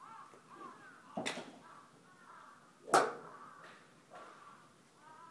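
Two sharp cracks of golf clubs striking balls at a driving range, the second, about three seconds in, the louder, with crows cawing repeatedly between them.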